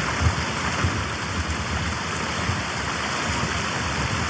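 A mountain stream (gill) rushing steadily, with irregular low rumbles underneath.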